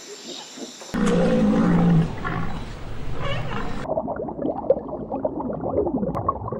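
Loud, low animal calls, in pieces that change abruptly about a second in and again about four seconds in.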